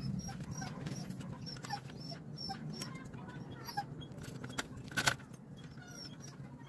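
Light metal clinks and taps from hands working on a motorcycle's rear wheel hub and brake arm, with one sharper clink about five seconds in.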